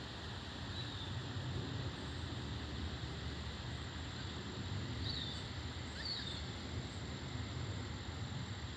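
Steady outdoor background noise with a low rumble, and a few faint high chirps, around a second in and again about five and six seconds in.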